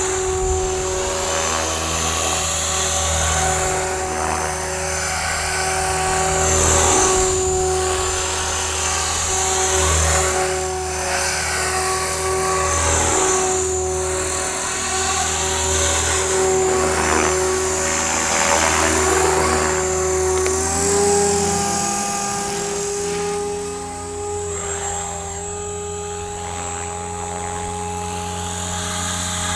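RJX Vectron 520 electric RC helicopter in low flight: a steady motor and rotor whine with repeated swells of blade noise as it moves about, its pitch stepping up slightly about two-thirds of the way in.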